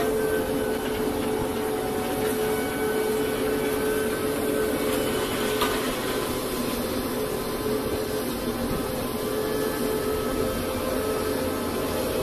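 Steady drone of heavy machinery running, with a constant hum, from the ship's deck crane and engines working a clamshell grab. There is a faint click about five and a half seconds in.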